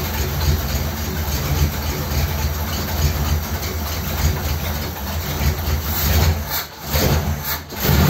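1957 Ford Thunderbird V8 idling steadily on its choke, with a Holley four-barrel carburettor; the choke is set but the fast idle is barely raised. The sound drops away briefly twice near the end.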